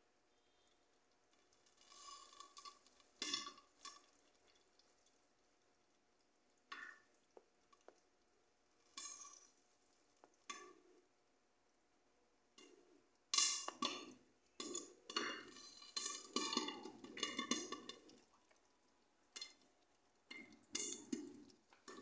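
Popcorn kernels popping in a covered pan with a glass lid: scattered single pops at first, then a dense run of quick pops for several seconds past the middle, and a few more near the end.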